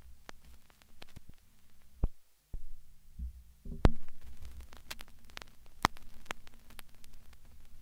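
Low hum with crackling static and scattered sharp clicks. It drops out almost to silence for a moment about two seconds in, then comes back with a louder low rumble and stronger clicks.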